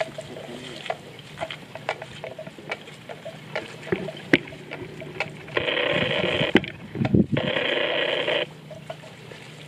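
Water buffalo feeding in shallow water: scattered small splashes and clicks. A little after halfway come two loud bursts of an electronic ringing tone, each about a second long, with a short gap between them.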